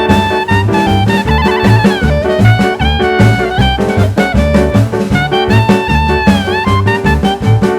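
Upbeat jazz background music: a brass lead melody with bending notes over a steady drum kit and bass beat.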